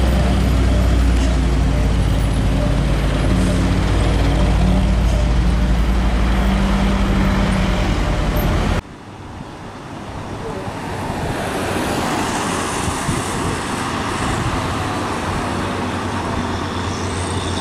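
Diesel engine of a heavily loaded cargo truck straining up a steep climb: a loud, deep, steady drone. About nine seconds in it cuts off abruptly, and quieter road and engine noise takes over, growing louder over the next few seconds as a Hino container truck's diesel works up the hill.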